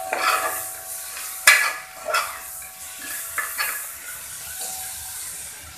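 Metal spoon stirring and scraping tomatoes and salt in a pressure cooker, over a steady sizzle of frying in hot oil, with a sharp clink of the spoon against the pot about a second and a half in.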